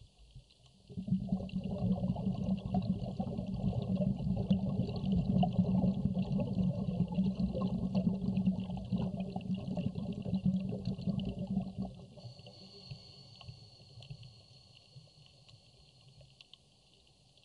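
Underwater: a diver's scuba exhaust bubbles gurgling and rumbling, starting about a second in and cutting off sharply after roughly eleven seconds. A faint, steady crackling hiss runs underneath.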